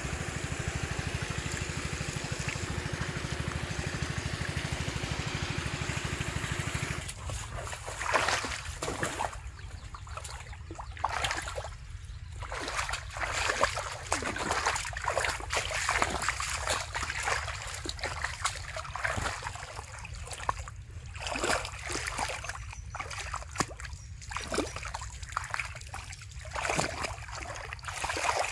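For the first seven seconds or so there is only a steady, even noise. After that come irregular splashes and sloshes as hands grope for fish in shallow muddy water, over a steady low rumble.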